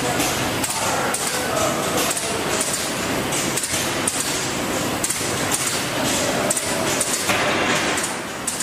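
Automatic bottle screen-printing and hot-stamping line running, with sharp mechanical knocks and clinks about twice a second over a constant machine hum.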